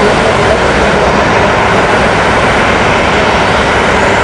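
De Havilland Dash-8 twin turboprop, Pratt & Whitney Canada PW100-series engines and propellers running as the airliner rolls along the runway. A loud, steady engine and propeller noise.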